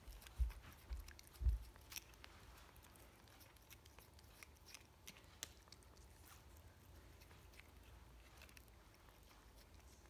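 Tabby cat licking and nibbling at a treat packet held to its mouth, giving faint scattered clicks and crinkles, with a few soft low thumps in the first two seconds.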